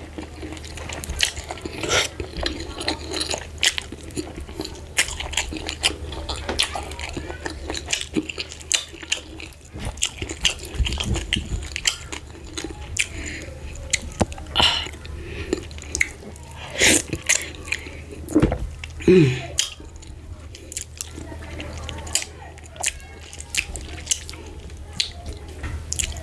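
Close-miked eating of fufu with ogbono soup: irregular wet chewing, lip smacks and mouth clicks. A short falling tone, likely from the mouth, is heard about two-thirds of the way through.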